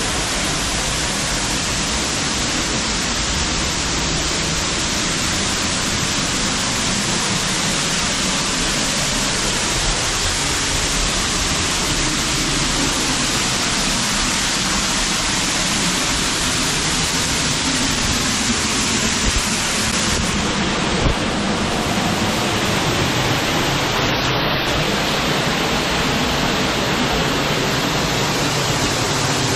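Steady rush of falling water, even and unbroken, its tone shifting slightly about twenty seconds in.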